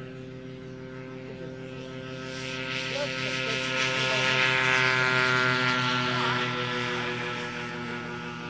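Engine and propeller of a Belite ultralight on its takeoff run, lifting off and climbing past: a steady engine tone that grows louder to a peak about four to five seconds in, then fades as the aircraft climbs away.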